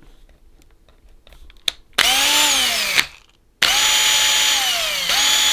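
Cordless 18 V drill's motor whining in trigger pulls, after a few soft handling clicks. About two seconds in it spins up for a second, then stops and winds down; just past halfway it starts again and runs on, its pitch sagging and then jumping back up near the end. The drill, freshly reassembled after a no-power fault, is running again.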